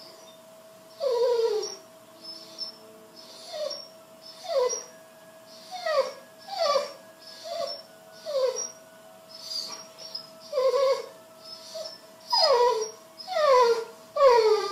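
A dog whining in short whimpers, each falling in pitch, repeated about once a second while it waits for its food.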